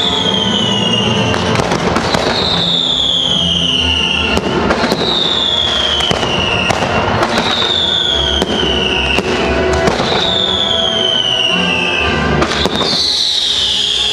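Fireworks display: scattered sharp bangs and crackle, with a high whistle that falls in pitch repeating about every two seconds, over music with a low bass line.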